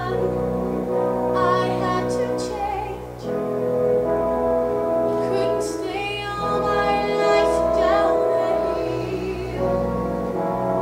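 A young female voice singing slow, long-held notes with vibrato into a microphone, over a musical accompaniment.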